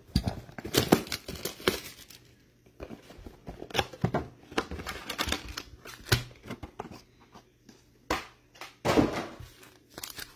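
Trading-card packs and their cardboard box handled on a table: irregular taps, scrapes and rustles, with the crinkle of a foil card-pack wrapper near the end.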